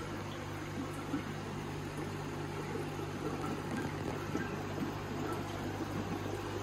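Aquarium filter running: a steady low hum from the pump, with water trickling and gurgling as it flows through the filter and back into the tank.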